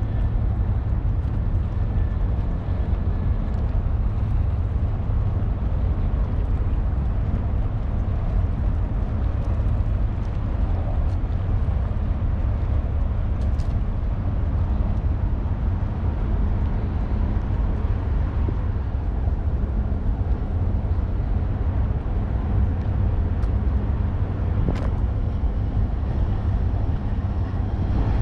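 Outdoor ambience: a steady low rumble with a fainter hiss above it, and a couple of faint brief clicks partway through.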